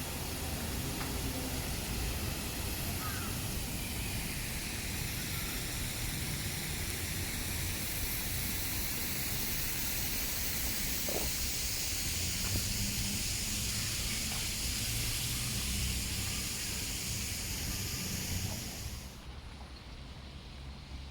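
Steady hiss of rain over a low rumble of city traffic. The hiss cuts off sharply near the end.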